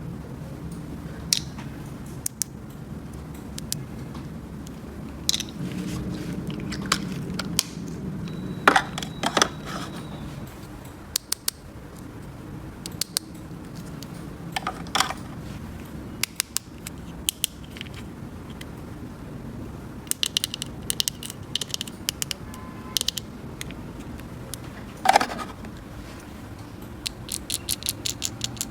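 Small plastic toy pieces being handled: scattered sharp clicks, taps and scrapes, with a quick run of clicks near the end.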